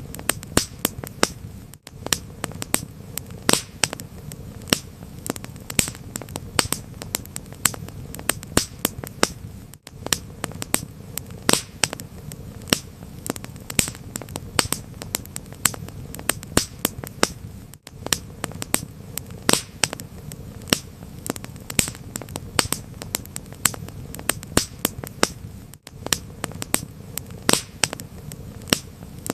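Wood fire crackling: many sharp pops and snaps over a steady low rumble and hiss of burning. The sound briefly drops out about every eight seconds.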